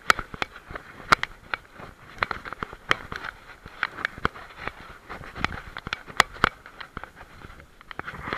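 Knocking and rattling from a camera strapped to a walking German Shepherd's head: irregular sharp clicks and knocks, a few a second, as the dog moves along a stony path.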